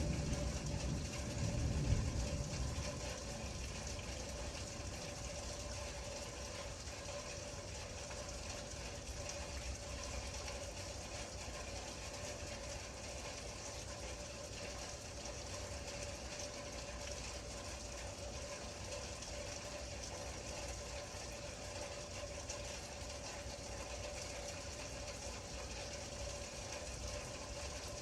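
Steady rain falling, an even hiss with a faint steady hum underneath. A low rumble of thunder dies away over the first couple of seconds.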